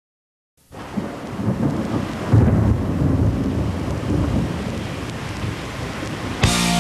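A low, rumbling noise with a hiss over it, like thunder and rain, starts just after the beginning and swells about two and a half seconds in. Near the end it gives way to a hard rock band coming in with a sustained electric guitar chord.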